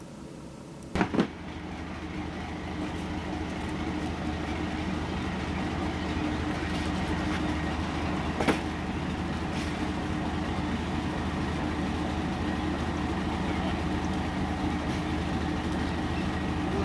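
Two loud knocks about a second in, then a large engine's low, steady hum that builds over a few seconds and holds, with a single sharp click about eight seconds later.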